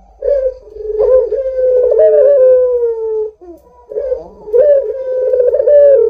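Puter dove (domestic Barbary dove) cooing: two long, slowly falling coos, the second beginning about four seconds in.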